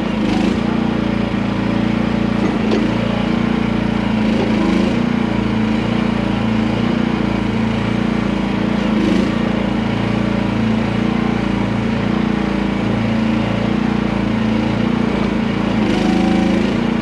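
The gasoline engine of a QH13R micro mini excavator running steadily at working speed, with a few faint knocks.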